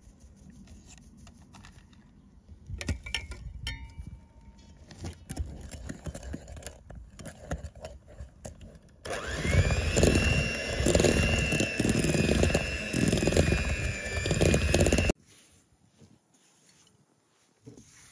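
Flour being sifted through a metal sieve into a bowl, with light taps and rustling. About nine seconds in, an electric hand mixer switches on with a steady whine, its beaters churning flour into minced meat for about six seconds, then cuts off suddenly.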